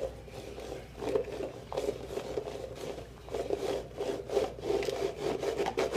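Red plastic party cups being slid and shuffled across a plastic tabletop: a rough, continuous rubbing scrape with many small clicks and knocks as the cups bump and drag.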